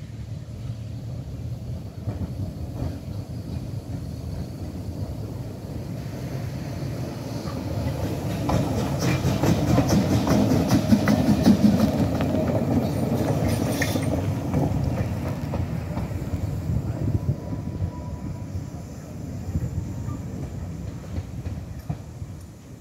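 Metre-gauge steam tank locomotive 99 6001 moving slowly as a light engine, running round its train, with wheels clicking over rail joints and the running gear clanking. It grows louder as it passes close about halfway through, then fades as it moves away.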